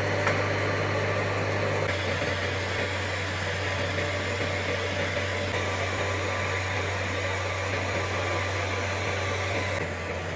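Orbital TIG welding machine running: a steady hum with a wide hiss over it, starting abruptly and holding level.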